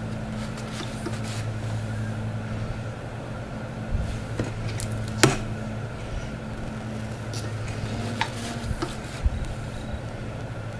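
A soap loaf being slid and repositioned by hand in a wooden soap cutter with an acrylic tray: scattered scrapes and light knocks, one sharp knock about halfway through. A steady low hum runs underneath and fades near the end.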